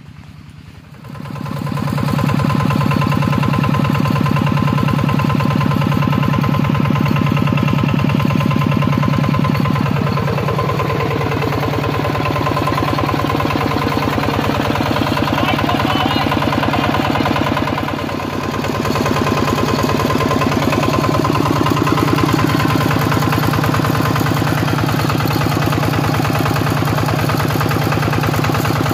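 Single-cylinder diesel engine of a two-wheel walking tractor running steadily with a fast, even beat. It comes in about a second in and dips briefly past the halfway point.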